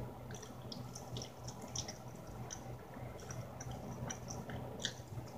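Close-miked wet mouth sounds of a person eating a chicken wing: a scatter of small smacks and clicks from lips, teeth and sauce, with no steady rhythm.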